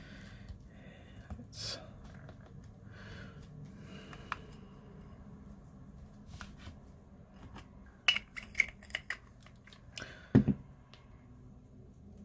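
Small plastic and metal clicks and rustles as a mirrorless camera body and a pancake lens are handled, caps are taken off, and the lens is twisted onto the bayonet mount. Scattered light clicks come first, then a run of sharper clicks, with the loudest click about ten seconds in.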